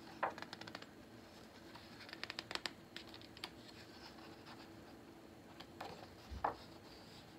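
Hands handling a paper picture book: faint scratching and clusters of quick light clicks, with a soft thump about six and a half seconds in.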